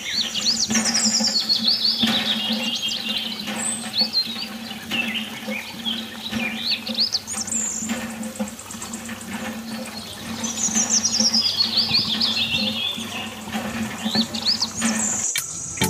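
Songbird song: several phrases of quick high chirps, each run sliding down in pitch over a second or two, over a steady low hum.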